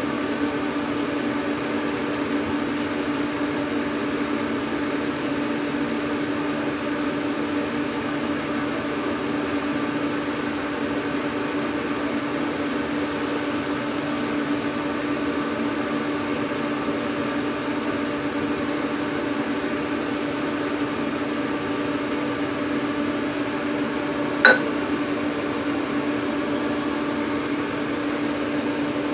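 Steady motor hum at an even pitch, with a single sharp click about twenty-four seconds in.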